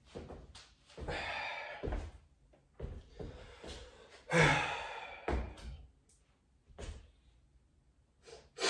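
A few dull thumps and knocks, with two longer noisy rushes a second or so long, from a person moving about on a floor at the start of a burpee workout.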